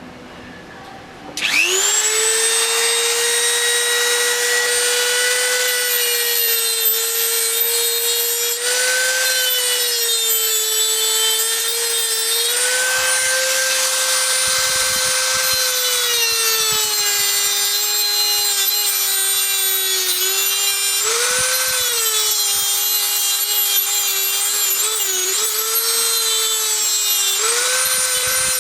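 Dremel rotary tool starting up about a second and a half in and running with a steady high whine as it cuts through the metal inlet tube of a power steering pump. The pitch dips briefly several times as the wheel bites into the metal.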